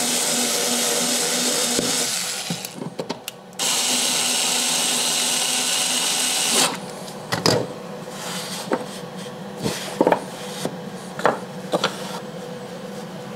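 A small cordless screwdriver runs twice, about two and a half seconds and then three seconds, driving the bolt of a plywood hold-down clamp. Several light knocks and clicks follow as the clamp and workpiece are set by hand.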